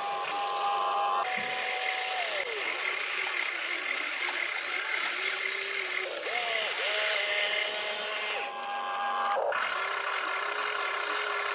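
Small electric motors and gearboxes of radio-controlled toy construction vehicles whining, starting and stopping several times with the pitch sliding up and down as they speed up and slow down, over a steady hiss. The sound drops out briefly about two thirds of the way through.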